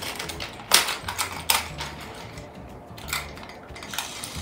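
Plastic Takara Tomy Plarail toy train cars clicking and clacking as they are handled, hooked together and set onto plastic track: several sharp clicks at irregular intervals.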